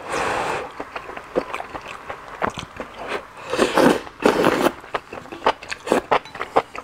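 Noodles in broth being slurped and chewed, close to the microphone: a slurp right at the start, then wet chewing clicks, and louder slurping from the bowl's edge about three and a half to four and a half seconds in.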